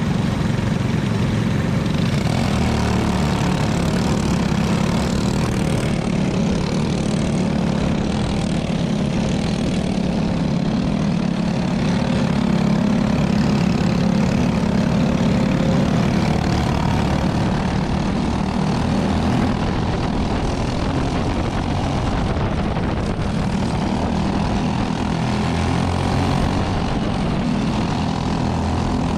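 Go-kart engines running steadily with a continuous drone, heard on board one of the karts as they sit on the grid and then pull away onto the track.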